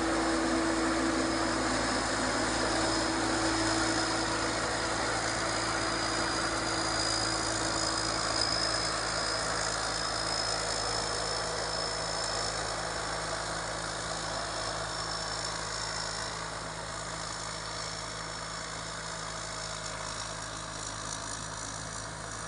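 Thai Seng rice combine harvester, fitted with a Hino J08C diesel engine, running steadily. It fades a little over the second half.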